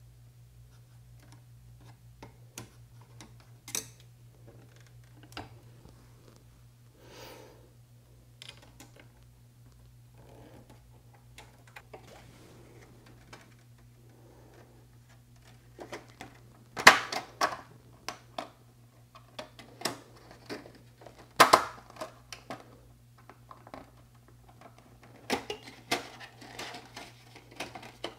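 Clicks, taps and light metallic knocks from a monitor's power-supply circuit board and its sheet-metal bracket being handled and fitted together, over a steady low hum. The two loudest knocks come a little past halfway, about four seconds apart.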